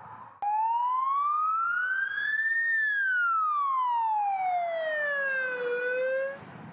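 A siren wailing: one slow rise in pitch over about two seconds, then a slower fall, before cutting off abruptly near the end.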